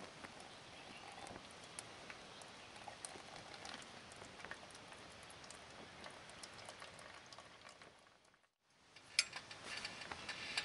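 Faint steady hiss with scattered small ticks and clinks from an aluminium camping mess tin being handled. The sound drops out briefly near the end, then comes back with louder clicks.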